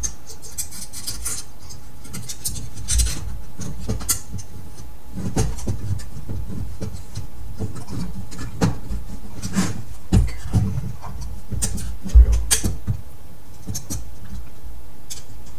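Handling noise from fitting a slide projector's plastic-and-metal lamp assembly by hand: scattered clicks, taps and rubbing, with a few low thumps against the tabletop, the loudest about twelve seconds in.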